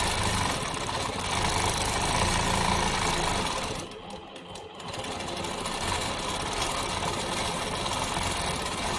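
Longarm quilting machine stitching pebbles, its needle running steadily. About halfway through it goes quieter for roughly a second, then picks up again.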